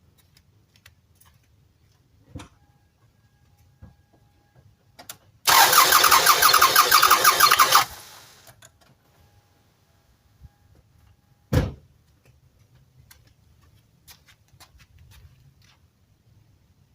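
Starter cranking the 1999 Toyota Sienna's 3.0 L V6 for about two seconds with a fast, even pulsing, the engine not firing because the EFI fuse is pulled: a compression-test crank on cylinder number 4, which reads about 180 to 190 psi. A single thump follows a few seconds later.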